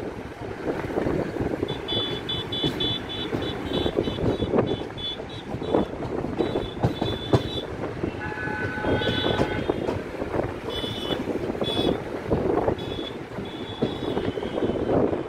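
Train running on the rails: a steady rumble with the wheels clattering over joints, and short high-pitched squeals coming again and again.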